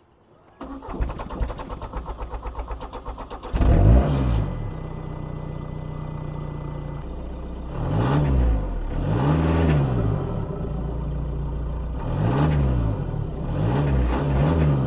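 Audi A3 2.0 TDI four-cylinder diesel heard through a newly fitted Darkside cat-back exhaust: the starter cranks for about three seconds, the engine catches with a rev flare, settles to idle, then is blipped up and back down four times.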